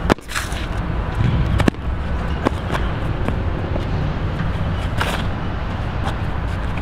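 Steady low rumble of city traffic, with a few sharp taps and a brief scuff about five seconds in from shoes stepping and sliding on stone paving.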